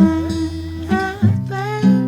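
Music: a song led by acoustic guitar, with a bass line under it.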